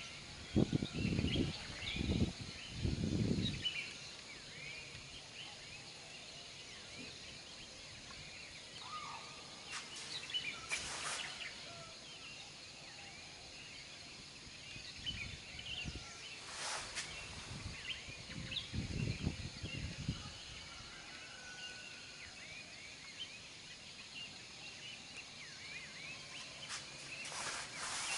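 Distant low rumbling from Mount Merapi's lava avalanche, coming in pulses near the start and again around the middle, which is called a rumble (gemluduk). Small birds chirp throughout.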